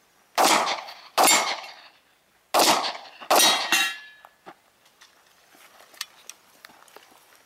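Four gunshots in two quick pairs, each shot ringing out and fading, with a metallic ring trailing after the last shot.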